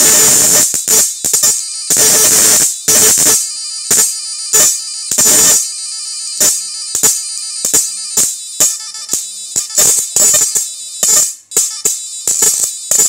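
Electric arc drawn between a welding rod and a metal strip from a homemade 7000 W IGBT inverter electric fishing machine, buzzing and crackling in bursts as the rod touches and pulls away, with a steady tone running underneath. The first few bursts last up to a second; from about six seconds on they come as short, quick strokes, roughly two a second.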